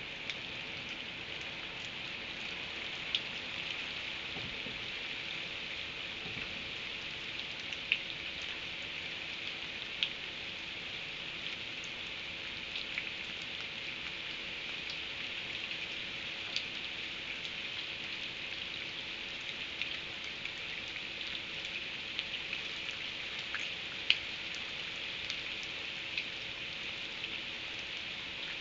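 Steady rain falling, with individual drops ticking sharply now and then; the sharpest tick comes near the end.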